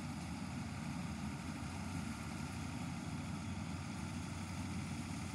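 Malkeet combine harvester running steadily as it cuts standing paddy; a constant low hum with no change in level.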